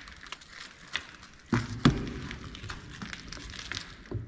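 A Luger-type pistol fired at a plastic kvass bottle: two sharp cracks close together about a second and a half in, the second the louder, followed by a few light knocks and rustles as the bottle is handled.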